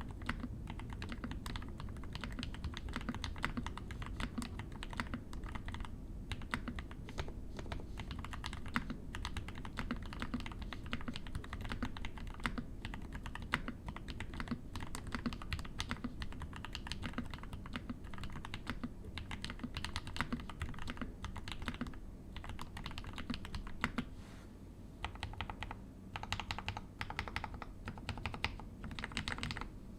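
Continuous fast typing on a custom mechanical keyboard: a Zaome Concrete 60 with a concrete case, lubed Bingsu POM linear switches on an FR4 plate and GMK keycaps, giving rapid keystroke clacks. The typing eases briefly about three-quarters of the way through, then picks up again.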